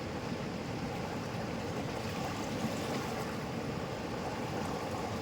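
River water flowing, a steady even rush of noise with no distinct events.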